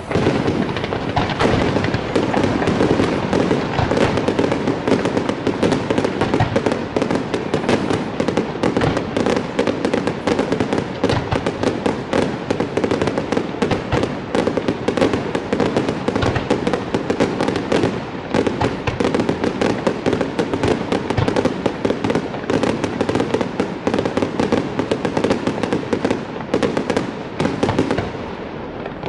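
Aerial fireworks display: a dense, unbroken barrage of rapid bangs and crackling, the reports overlapping with no pause between them.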